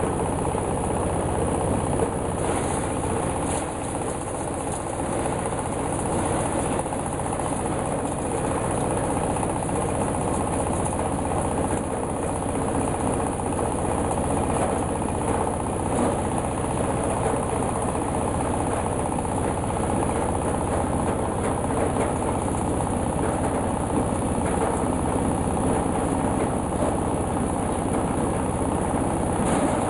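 Single-cylinder stationary diesel engine running steadily, driving a coconut husk decorticator, with an even mechanical clatter.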